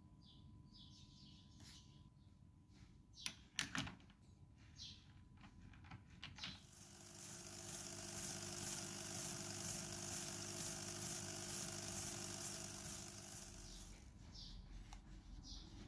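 Light handling clicks, with two sharp clicks about three and a half seconds in. Then, about seven seconds in, a cordless drill starts and runs steadily for about seven seconds, spinning the pipe wrench's knurled adjusting nut on a wooden dowel in its chuck, with a steady hiss over the motor's hum.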